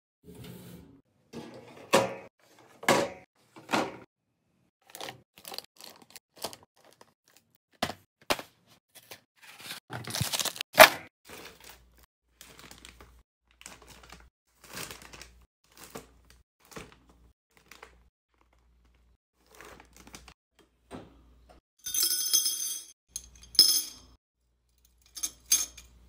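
Snack packages being handled and set into storage bins: foil and plastic snack bags crinkling, with separate clicks and knocks as items are placed, and short pauses between.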